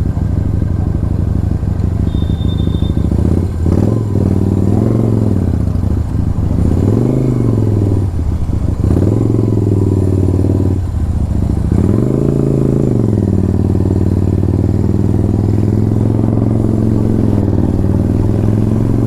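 Motorcycle engine under way, pitch climbing and dropping back several times as the throttle is opened and closed, with steady running in between.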